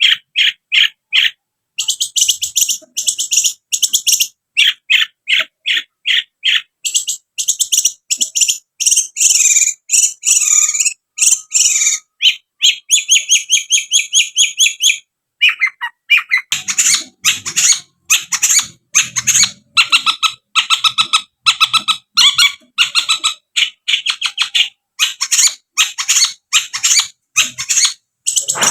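Long-tailed shrike singing a fast, chattering song of short, rapidly repeated high notes, broken by a couple of brief pauses.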